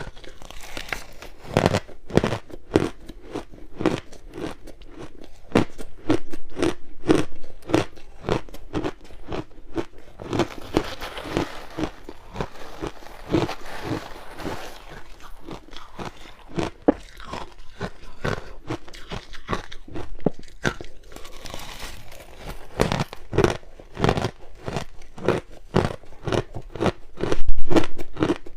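Ice being bitten and chewed close to the microphone: a steady run of sharp crunches and cracks, thicker in a few stretches, with one loud crunch near the end.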